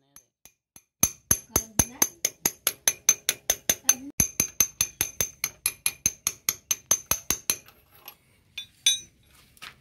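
Quick, even metal-on-metal taps, about four or five a second, of a steel bar striking a tubular box spanner used as a drift to drive a new oil seal onto a motorcycle's gear shift shaft; each tap rings. The tapping stops after about six seconds, followed by a couple of separate knocks near the end.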